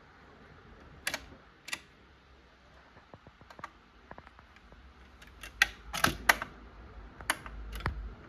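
Panasonic SL-790 automatic record changer being operated: a series of mechanical clicks and clunks, sparse at first and then a dense cluster a little past the middle, with a low hum coming in partway through.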